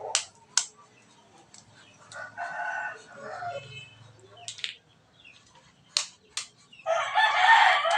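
Two eggs cracked open, each with two sharp taps, one pair at the start and one about six seconds in. A rooster crows twice in the background, the second crow near the end the loudest sound.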